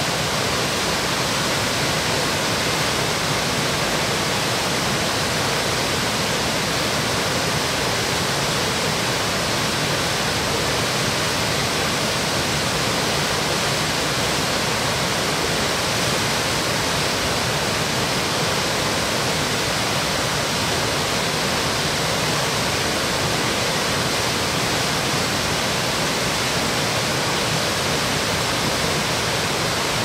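Waterfall cascading down a rocky gorge: a steady, even rush of falling water.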